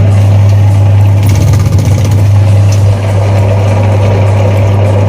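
Kenwood washing machine's wash motor running with a loud, steady low hum, cutting off at the end. The machine is being run to test its drive, and the repairer finds the gearbox faulty.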